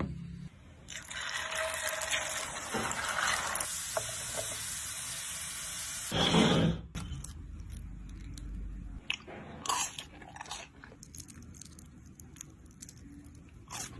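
A steady hiss, like sizzling oil or running water, lasting about six seconds and cutting off suddenly. It is followed by scattered short crunches and clicks of crispy potato chips.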